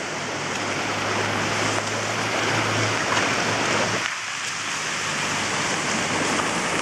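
Muddy floodwater streaming across a yard and paved driveway: a steady rushing noise.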